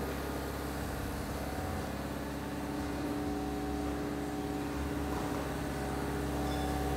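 Steady low hum with a few held tones, even in level throughout.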